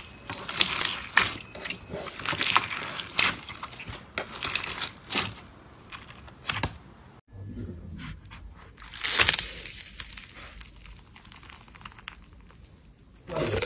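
Fingers squeezing and stretching clear glitter slime, making a rapid run of sticky crackling and tearing sounds. About seven seconds in, this gives way to a quieter, softer squishing of a thick grey slime being pushed by hand, with a louder flurry a couple of seconds later.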